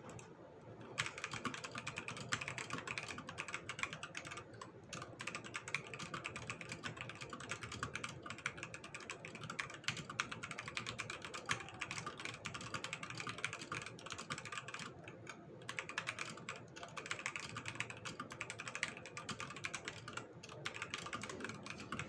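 Fast, continuous typing on a Machenike keyboard: a dense stream of key clicks that starts about a second in, broken by short pauses around four seconds in and again about two-thirds of the way through.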